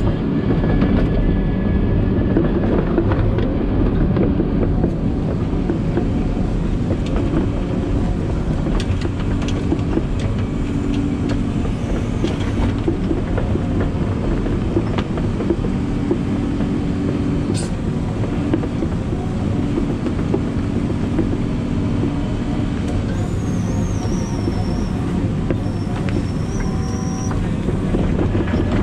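Steady low rumble of a moving vehicle, with scattered clicks and rattles throughout.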